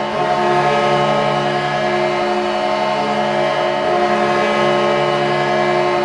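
Utica Comets' hockey goal horn sounding one long, steady blast, a chord of several held tones.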